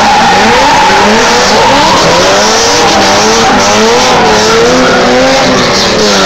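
Two drift cars sliding sideways in tandem, loud throughout. Their engines rev up and down in waves while the tyres skid and squeal on the asphalt.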